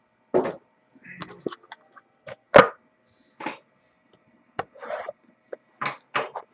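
Cardboard card boxes being handled on a table: a string of short rustles, rubs and taps, with one sharper knock about two and a half seconds in.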